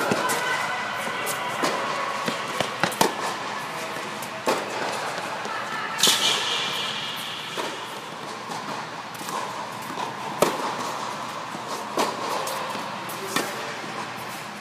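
Tennis rally on an indoor hard court: sharp racket-on-ball hits and ball bounces at irregular intervals, a few seconds apart, echoing in the large dome.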